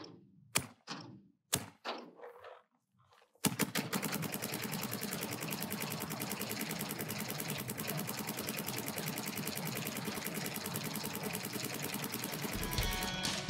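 Luxe X electronic paintball marker firing: a few single shots about a second apart, then from about three and a half seconds in a long unbroken stream of rapid shots for about nine seconds. Music starts near the end.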